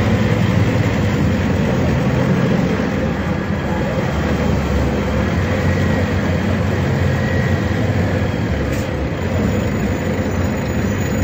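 Scania K250 UB city bus's rear-mounted five-cylinder Scania DC09 diesel engine running steadily, heard from inside the passenger cabin.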